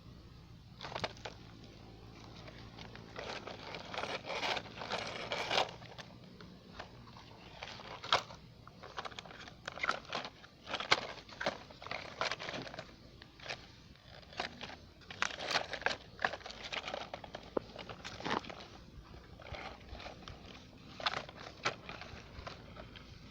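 Model excavator's bucket scraping and scooping loose soil: irregular crunching, scraping and crackling as dirt is dug and poured, with a faint low hum in the first few seconds.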